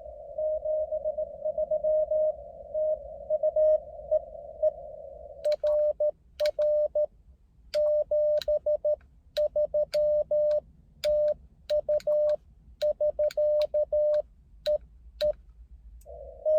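Morse code (CW) on a 30 m amateur radio transceiver: for about five seconds a received signal keys a single-pitch tone over band hiss, then cleaner sidetone beeps, each with a sharp click, come in groups as the operator sends, and the received signal with its hiss comes back near the end.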